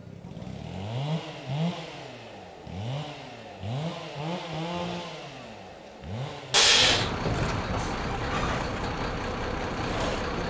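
A heavy engine revving up and dropping back over and over, roughly once a second. About two thirds of the way in, a sudden loud hiss cuts in, followed by steady, louder engine noise.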